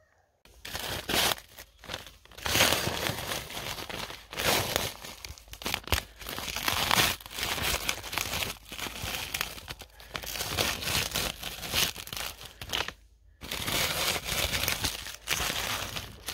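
Ice scraper scraping a layer of frost off a frozen surface, in repeated gritty strokes with a short pause near the end.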